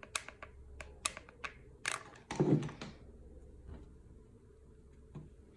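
Hot glue gun clicking as its trigger is squeezed to feed glue, a quick irregular run of light clicks, followed by a single dull knock a little before the middle.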